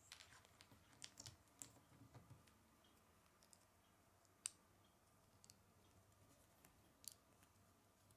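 Faint clicks of small plastic Lego plates being handled and pressed together: a cluster of clicks in the first couple of seconds, then a few single sharper clicks, the loudest about four and a half seconds in.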